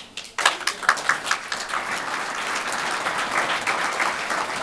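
Room full of guests applauding: a few scattered claps, then full applause breaks out about half a second in and holds steady.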